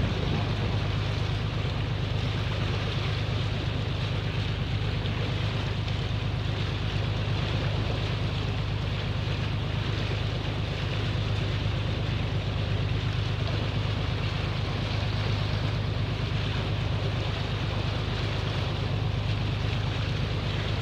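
Tour boat's engine running steadily with a low, even drone, under a rushing wash of wind and water noise as the boat moves along.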